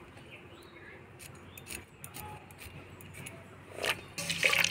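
Scattered light clicks of a boti blade cutting young green jackfruit into small cubes, a few cuts a second.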